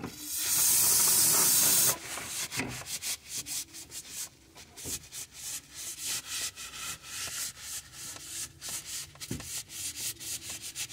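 Paper towel wiping painted sheet metal in a car footwell in quick back-and-forth rubbing strokes. It opens with about two seconds of loud, steady hiss that stops abruptly.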